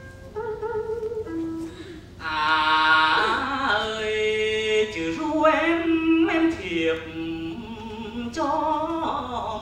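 A man singing a northern Vietnamese chèo melody with a wide vibrato while accompanying himself on a đàn bầu, the one-string monochord. Its bent, wavering notes play alone for about two seconds before the voice comes in, then carry on beneath the singing.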